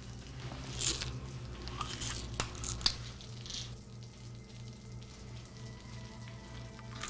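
A few short rustles, crunches and sharp clicks of small objects being handled, loudest in the first three seconds, over a low steady musical drone.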